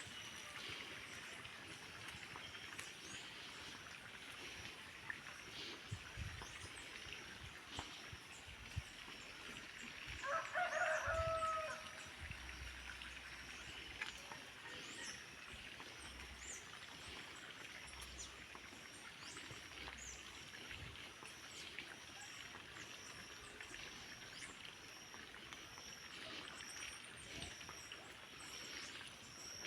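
A rooster crows once, about ten seconds in, a single call lasting about a second and a half. Faint, high chirps repeat evenly in the background.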